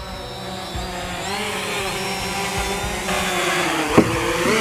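Small quadcopter drone's propellers whining as it comes down to land, the pitch wavering and the sound growing louder as it nears. About four seconds in there is one sharp knock as it touches the ground.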